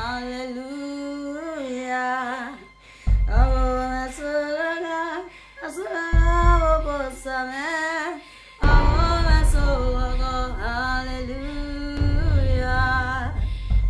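Music: a woman's voice singing a slow, wavering melody over an accompaniment whose deep bass comes and goes.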